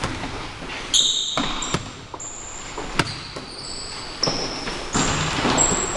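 Basketball bouncing on a hardwood gym floor, several sharp knocks, with sneakers squeaking in short high-pitched chirps as players cut and stop.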